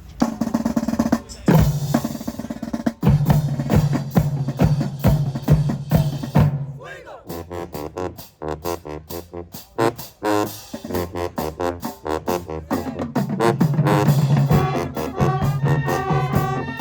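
High school marching band playing, led by its drumline with rapid snare strokes, rolls and bass drum hits. Sustained brass notes build in over the drums near the end.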